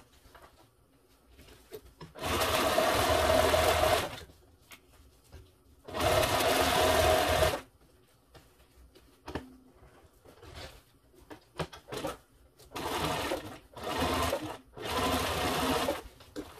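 Sewing machine stitching a zipper onto leatherette in stop-start runs: two runs of about two seconds each, then three shorter, quieter bursts near the end, with small handling clicks in between.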